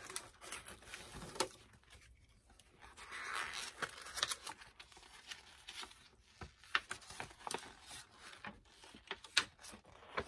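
Paper and cardboard packaging rustling and crinkling as a doll box is handled and a folded paper poster is pulled out, with scattered sharp clicks and a longer crinkle a few seconds in.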